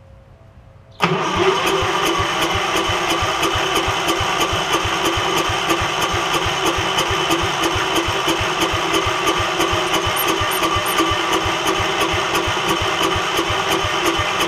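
Gravely 5665's Kohler engine turned over by its electric starter without catching: a steady starter whine with regular compression pulses, several a second, starting about a second in. The engine is failing to fire because its carburettor is flooding with fuel.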